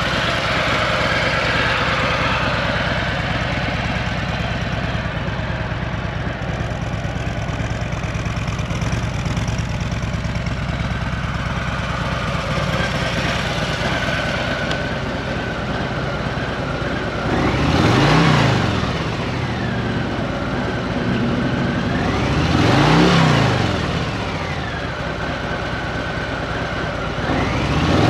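Harley-Davidson Fat Boy 114's Milwaukee-Eight 114 V-twin idling steadily while stationary, then revved twice, each rev rising and falling in pitch about five seconds apart, with a third rev starting at the very end.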